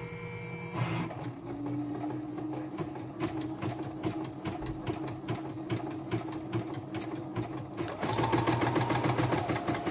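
YOKO portable embroidery machine stitching a design, a rapid even ticking of the needle over the steady run of its motor, during a test run after servicing. After a short steady hum, the stitching starts about a second in and gets louder about eight seconds in.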